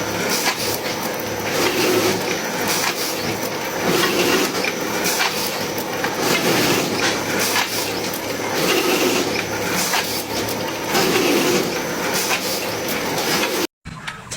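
A woodworking machine running and cutting wood: a steady mechanical hum and cutting noise that swells and eases about every two seconds as it works, then cuts off abruptly near the end.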